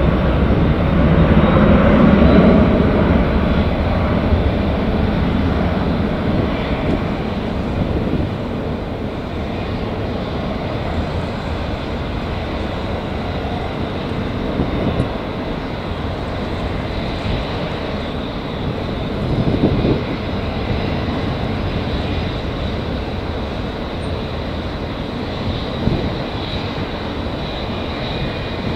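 Jet engines of a twin-engine Airbus A330-300 airliner at climb power just after takeoff. The rumble is loudest in the first few seconds, then fades to a steady, more distant rumble as the aircraft climbs away.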